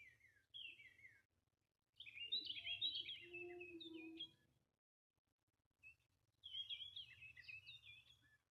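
Songbirds singing faintly: two short phrases of chirps falling in pitch at the start, then two longer runs of quick warbling notes, about two seconds and about six and a half seconds in.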